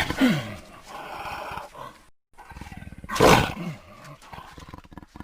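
Invented Eoabelisaurus dinosaur calls: a loud roar that slides down in pitch and trails into a low rasping growl. After a brief gap, a second falling roar comes about three seconds in, followed by more growling.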